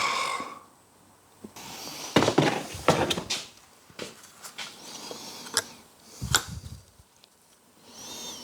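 Sharp knocks, clicks and scraping of metal engine parts being handled, as the sump is taken back off the Kawasaki ZZR1100 engine to fit the forgotten oil strainer.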